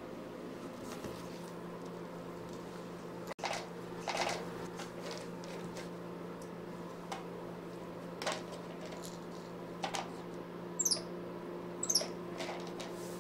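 Capuchin monkey giving two short, high squeaks that fall in pitch, about a second apart near the end, among scattered soft clicks and rustles, over a steady low hum.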